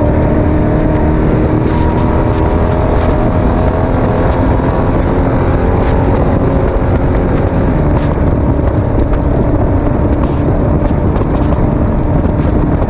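Desert race truck's engine running hard and steady at speed, its pitch drifting only slightly, over a heavy low rumble with wind buffeting the microphone.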